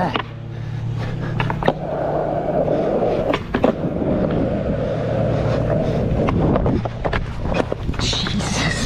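Skateboard wheels rolling on rough asphalt, a steady rumble, with several sharp clacks of the board striking the ground. Near the end the rolling breaks off in a scuffle as the rider falls.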